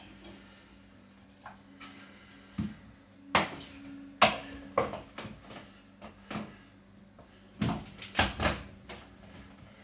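Irregular knocks, taps and clatter of hands working at a kitchen counter as peeled red onions are put into a mini chopper, over a faint steady hum.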